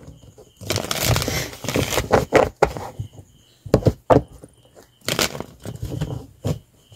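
A deck of tarot cards being shuffled by hand: irregular bursts of cards rustling and snapping against each other, the longest lasting about two seconds from near the start, then shorter snaps and clicks with brief pauses between.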